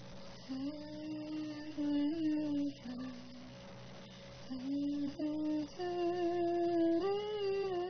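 A singer's voice humming the melody without words, in long held notes that slide from one pitch to the next.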